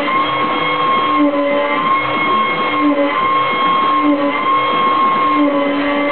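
CNC router spindle running at speed as a 4 mm cutter carves an ornament into a wooden board, a steady whine with the machine's note shifting as the cutter moves. A lower tone comes and goes about every second and a half as the tool path changes.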